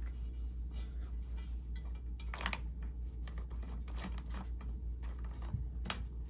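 Scattered light clicks and scratching from handling, over a steady low hum.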